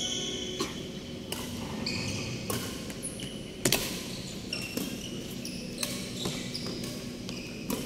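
Badminton rally: rackets striking the shuttlecock back and forth in sharp hits roughly every second, the loudest a little past halfway, with short high squeaks of shoes on the court mat between them.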